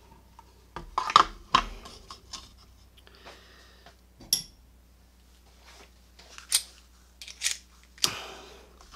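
Small metal tools and a padlock being handled and set down: scattered clicks, taps and light scrapes of metal on a hard surface, a quick cluster about a second in and single knocks later on.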